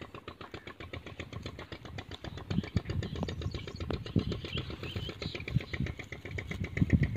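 A small engine running steadily with a rapid, even putter. Low thuds come and go over it in the second half.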